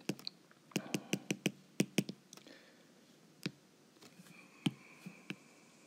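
Stylus tapping and clicking on an iPad's glass screen during handwriting: a quick run of sharp taps in the first two seconds, then a few scattered ones.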